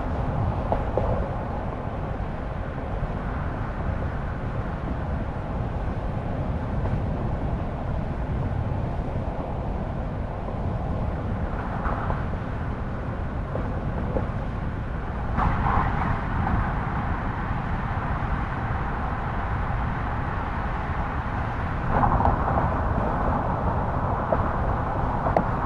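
A car driving steadily, with a continuous low rumble of tyre, road and engine noise. The rumble gets somewhat louder and brighter about halfway through, and again near the end.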